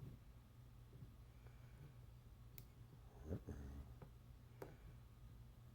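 Near silence with a few faint, scattered clicks of lock picks working inside a lock; the most distinct click comes a little past three seconds in.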